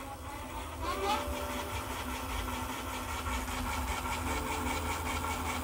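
Troxus Lynx e-bike's hub motor whirring as the throttle spins the wheel, its whine rising about a second in and then holding steady.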